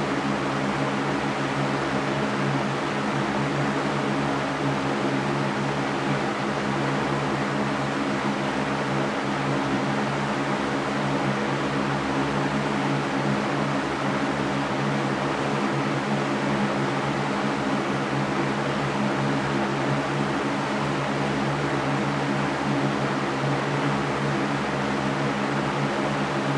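Electric fan running steadily: an even rushing of air with a low steady hum from the motor.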